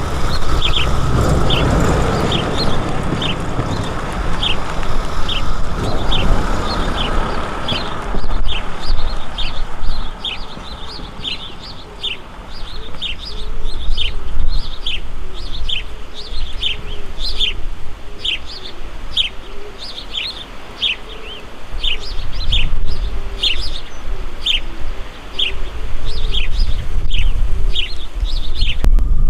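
A bird chirping over and over, a quick falling chirp a little more than once a second, over a low rumble.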